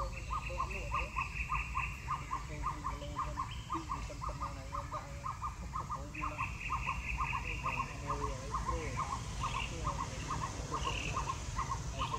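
Outdoor animal calls: one evenly repeated note, about three or four a second, running steadily, with a higher rapid trill near the start and again about six seconds in, over a steady low rumble.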